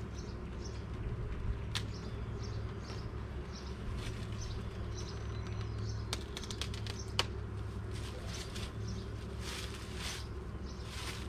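Honeybees buzzing steadily around an open Langstroth hive, with scattered sharp clicks and knocks from the hive's wooden parts being handled, several in quick succession about six to seven seconds in.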